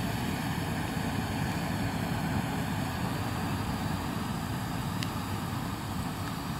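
Homemade smoke grenade burning, with a steady rushing hiss as flame and smoke jet out of it.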